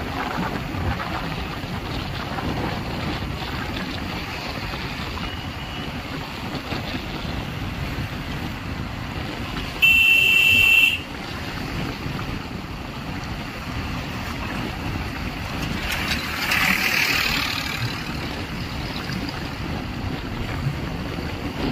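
Wind and road noise while riding along a highway in a moving vehicle. A vehicle horn sounds once for about a second near the middle. A louder rush of passing-traffic noise follows a few seconds later.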